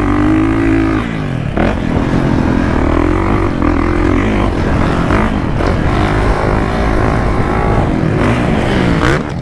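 Kawasaki KX450 motocross bike's four-stroke single-cylinder engine running hard under the rider, its pitch rising and falling as the throttle opens and closes, with a sharp drop about one and a half seconds in and another dip near the end.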